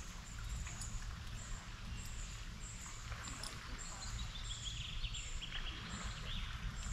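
Riverbank ambience: a short high chirp repeating about three times a second, with a bird warbling faintly through the middle, over a steady low rumble.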